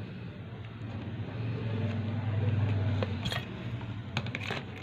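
A low droning hum that swells for a second or so and then eases off, with a few sharp clicks near the end.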